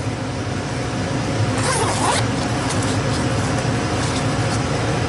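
Zipper on a heavy-duty Fluke meter carrying bag being pulled open in one short zip about two seconds in, followed by a few light handling clicks, over a steady low hum.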